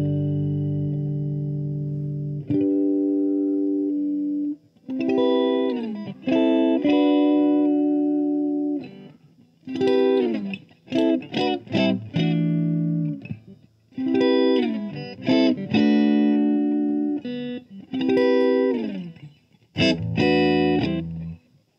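Electric guitar, a 1980 Gibson Les Paul played through a Fender combo amp: a long held chord, then short phrases of chords, some sliding down in pitch, with brief pauses between them.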